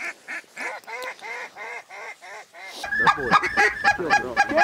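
Hunters blowing waterfowl calls: a steady run of short call notes, about four a second, then several calls at once, louder, with a steady high whistle note among them, as ducks are worked in over the decoys.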